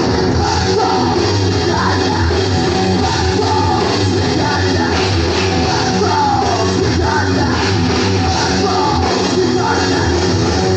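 Punk rock band playing live at full volume: electric guitars, bass guitar and drums, with a singer's vocals over them.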